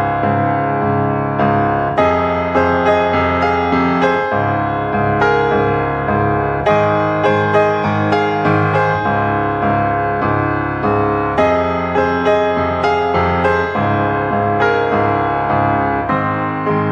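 Background piano music: a keyboard playing a gentle melody of repeated notes and chords.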